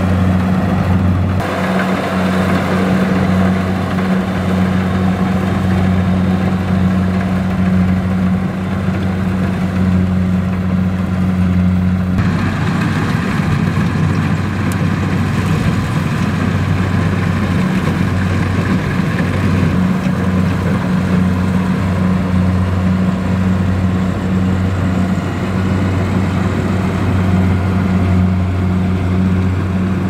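Kubota DC-70 rice combine harvester running while it cuts rice, a loud, steady low engine hum under the noise of the cutting and threshing machinery. The sound changes about twelve seconds in, the hum growing rougher for a few seconds before it steadies again.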